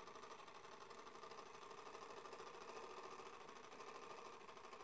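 Clockwork mechanism of an early-1900s oak-cased fly trap running with a faint, steady mechanical whir.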